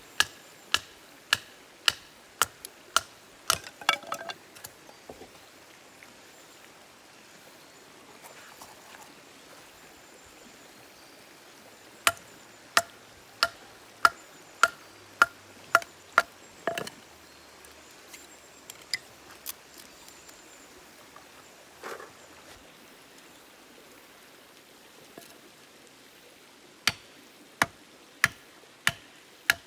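Knife chopping, sharp strikes about two a second with a slight ring, in three runs separated by pauses.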